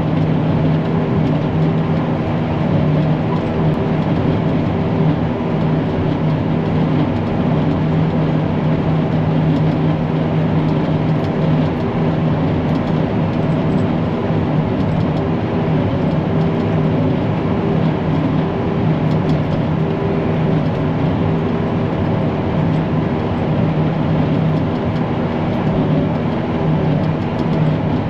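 Self-propelled forage harvester running steadily under load while chopping hay, a constant engine drone with a steady low hum.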